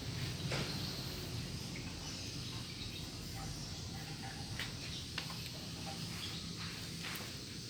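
Steady outdoor background noise, with a few faint clicks and taps.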